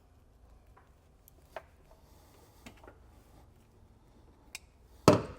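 A few faint clicks of hand tools and wire being handled, then one loud sharp click about five seconds in.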